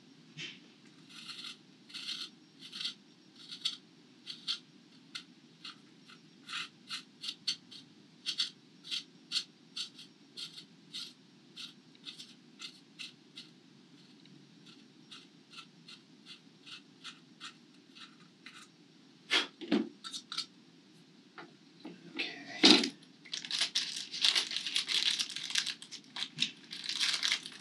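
A small thread tap in a hand pin vise cutting threads into holes in a fiberglass sled: a long run of short scraping ticks, two or three a second. About twenty seconds in come a few knocks, then a small plastic parts bag crinkles near the end.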